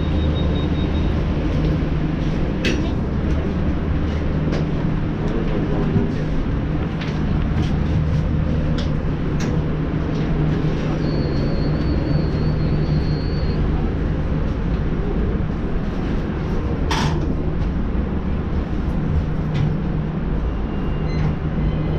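Aerial tramway cabin full of boarding passengers: a steady low machinery hum under indistinct chatter, with scattered clicks and knocks from people and bicycles moving in, and a short hiss about three-quarters of the way through.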